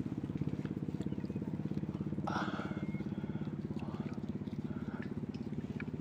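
A small engine running steadily at an even speed, with a fast regular pulse.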